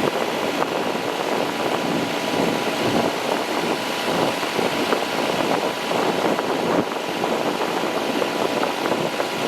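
Boat engine running steadily under way.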